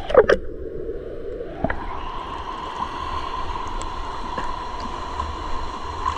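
River water running and gurgling, with a few sharp splashes or knocks in the first half-second.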